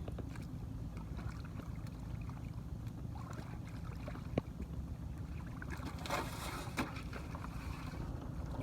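Wind rumbling steadily on the microphone outdoors, with scattered small knocks and a brief burst of noise about six seconds in.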